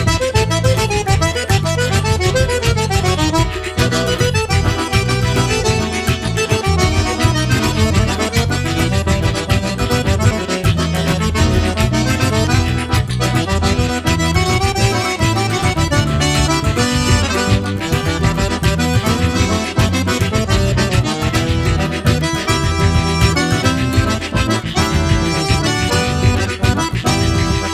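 Forró music led by an accordion, playing continuously over a steady beat.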